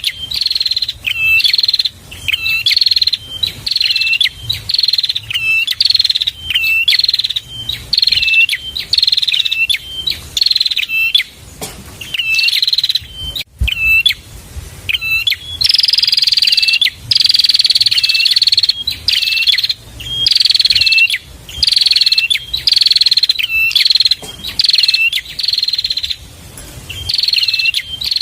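Prenjak (prinia) singing loudly: a high falling note with a short hooked note below it, repeated about once a second, running into a longer unbroken phrase midway.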